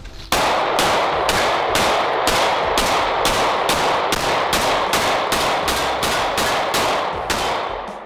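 A 9mm semi-automatic pistol fired in rapid, evenly paced shots, about twenty of them at roughly three a second, the report of each shot running into the next. The firing starts just after the opening and stops shortly before the end.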